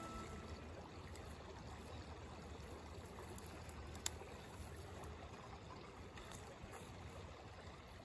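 Background music fading out at the very start, leaving a faint steady outdoor hiss with a single sharp click about four seconds in.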